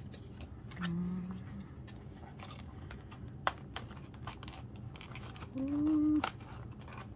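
Hands handling a cardboard album case on a wooden table, giving a few light taps and rustles. Two short hummed voice sounds, about a second in and near the end, are the loudest moments, over a steady low hum.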